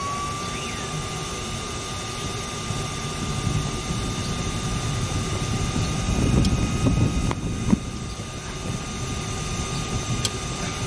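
Handheld gas torch flame burning steadily against a seized rusty suspension bolt, heating it to break it free, with a thin steady whistle.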